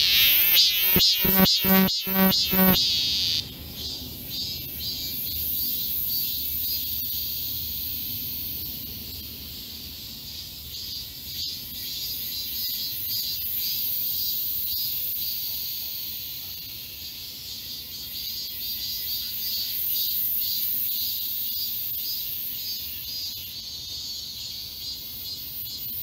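Music ends about three seconds in, then a chorus of cicadas sings in the trees: a dense, steady, high-pitched buzz with a rapid pulsing, swelling and easing slightly over the seconds.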